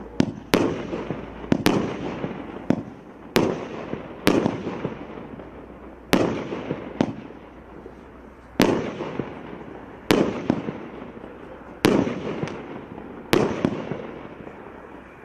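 Multi-shot fireworks cake firing shot after shot, with a sharp bang every second or so, each one dying away over about a second.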